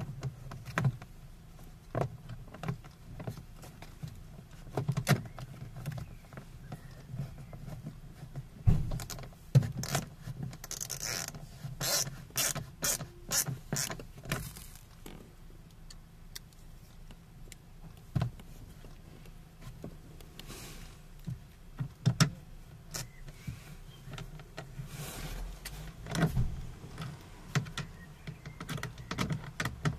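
Scattered clicks and knocks of hard plastic as a Renault Clio 1 door trim panel is handled and pressed into place on the door, with a short scraping rustle about eleven seconds in and a quick run of clicks just after.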